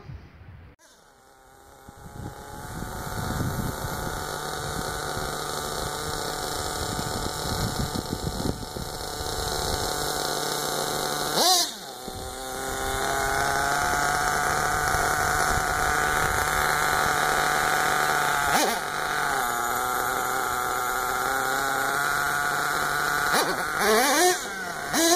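RedCat Earthquake 3.5 RC truck's 3.5 cc nitro engine running with a steady high note, growing louder over the first few seconds. The pitch briefly rises and falls with throttle blips about halfway through, again a few seconds later, and several times near the end.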